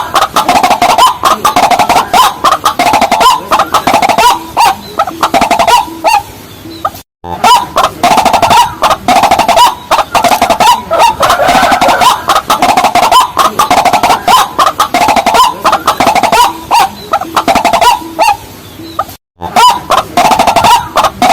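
Rail-family waterbird calls (waterhen or watercock) in a dense series of rapid, repeated clucking notes. The recording plays as a loop, cutting out briefly about 7 seconds in and again near the end before starting over.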